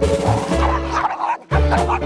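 Background music with a steady beat, and a Bichon Frise barking a few times in the first second and a half.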